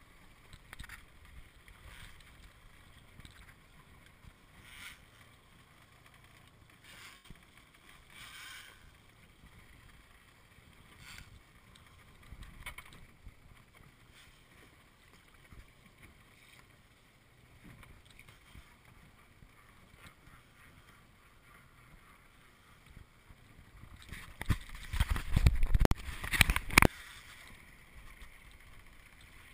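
Water lapping and sloshing against a small boat's hull, with faint wind on the microphone and scattered short rushes of noise. Near the end a loud rush of noise lasts about three seconds.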